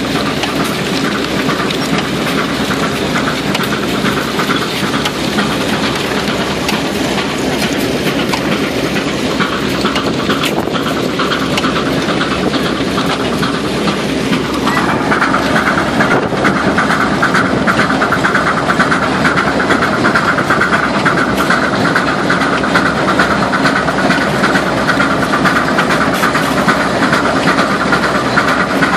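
Case steam traction engine running under load as it pulls a plow through soil, a steady rhythmic clatter mixed with the rattle of the plow frame. About halfway through a higher-pitched steady sound joins in and stays.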